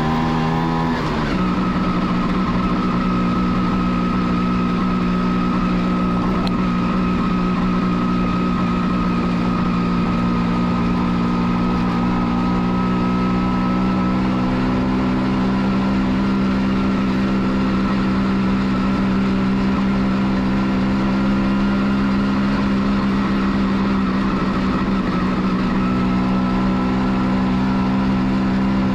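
A 1989 Kawasaki B1's two-stroke engine pulling the motorcycle along under way, heard from the rider's seat. Its note climbs, drops sharply about a second in, then holds steady at cruising speed, rising only slowly, over a constant rush of wind and road noise.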